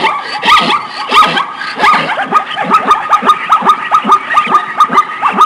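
Plains zebra calling: a rapid series of short, yelping barks that quickens into an even run of about four a second.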